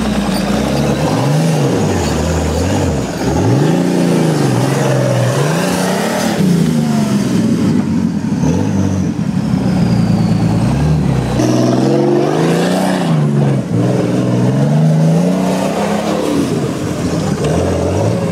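Off-road trial buggy's engine revving up and down in repeated bursts of throttle as the vehicle crawls through mud and up a steep dirt bank. Each rev rises and falls over a second or two, and the engine note changes about two-thirds of the way through.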